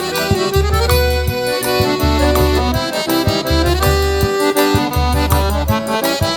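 Instrumental forró pé de serra break: accordion playing a melody over a steady low drum beat with light percussion ticks.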